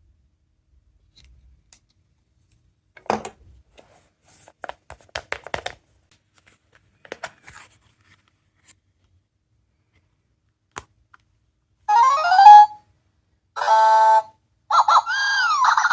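Small plastic sound-making capsule toy handled with a few light clicks, then its electronic sound chip plays through a tiny speaker: a quick sliding chirp, a short steady beep, and near the end a warbling tone that rises and falls over and over like a siren.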